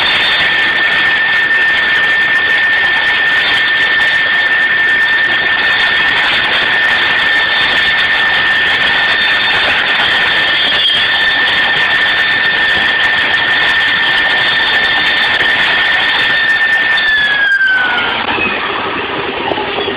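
CNC milling-engraving machine's spindle running with a steady high whine over a wide band of noise. About three seconds before the end the whine slides down in pitch and the sound drops off as the spindle winds down.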